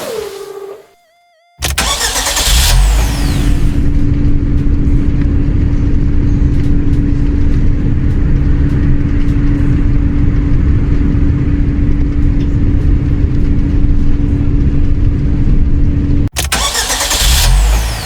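Concrete mixer truck's engine running steadily with a low rumble and one steady hum over it, starting suddenly after a short silence and cutting off abruptly near the end, followed by a brief burst of the same kind of sound.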